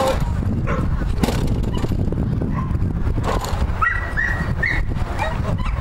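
Border collie giving a few short, high yips and barks during an agility run, over a steady low rumble.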